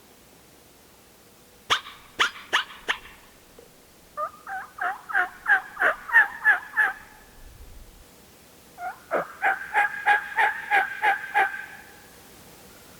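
Hunter's turkey call imitating a hen: a few sharp cutts, then two long runs of yelps, each note breaking between a lower and a higher pitch. It is locator calling to get a tom to gobble back.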